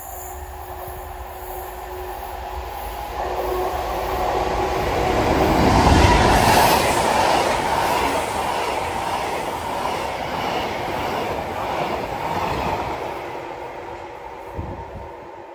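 Freight train of tank wagons passing close by, the wheels rumbling and clattering on the rails. It builds to its loudest about six seconds in, then fades as the last wagons pull away.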